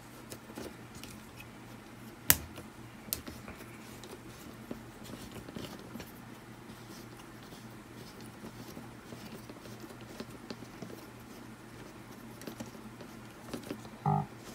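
Handling noise from a plastic blimp microphone windscreen and its shock mount being worked by hand as the mounts are loosened: light rubbing with scattered small clicks, one sharp click about two seconds in, and a brief pitched squeak near the end.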